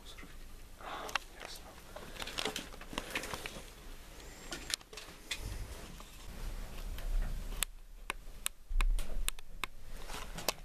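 Irregular sharp clicks and small knocks with rustling, and one louder dull bump a little before nine seconds.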